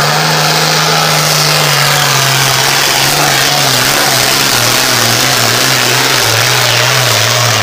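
Super Farm class pulling tractor's turbocharged diesel engine running hard at high revs, loud and steady, its pitch wavering slightly.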